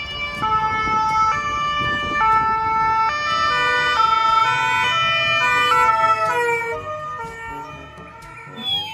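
Ambulance siren sounding in alternating high and low notes that change about once a second, over the hiss of passing traffic. It grows quieter near the end.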